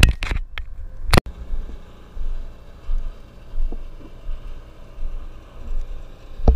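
A handheld camera being moved and knocked: sharp knocks at the start and about a second in, followed by an uneven low rumble.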